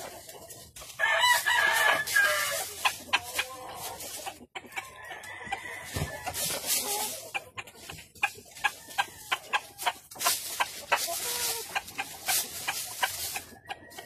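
A rooster crows once about a second in, followed by shorter clucking calls. Throughout there are sharp clicks and rustling from chickens pecking and scratching in dry leaf litter.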